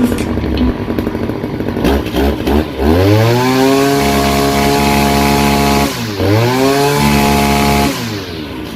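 Husqvarna 541RS brush cutter's two-stroke engine idling unevenly, then revved up to high speed and held. It drops off briefly about six seconds in, revs up again, and falls back toward idle near the end.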